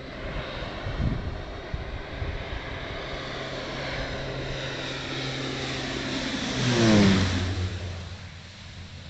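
Air Tractor AT-502's PT6A turboprop engine and propeller flying past low. The engine tone grows steadily louder, peaks about seven seconds in, then drops in pitch as the plane goes by and moves away.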